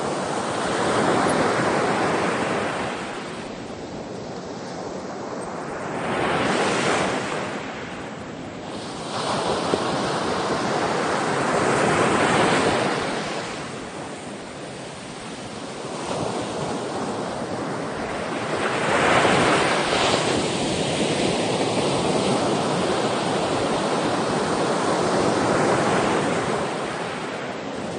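Sea surf: waves washing in, the rush of water swelling and falling away about five times, every four to seven seconds.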